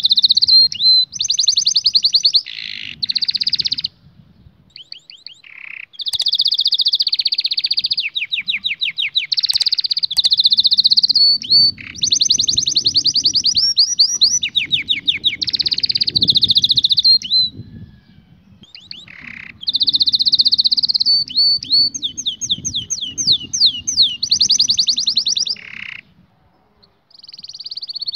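Domestic canary song: long phrases of rapid trills and rolling notes, broken by pauses of a second or two, the song resuming near the end.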